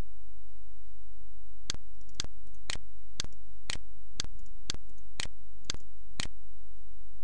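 A run of ten sharp clicks, evenly spaced about two a second, starting a little under two seconds in, over a steady low electrical hum.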